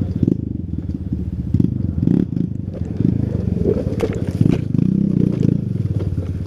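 KTM EXC 250 two-stroke single-cylinder dirt bike engine running at low, varying revs as it pulls along a muddy trail, with a few sharp knocks and scrapes of grass and branches brushing the bike.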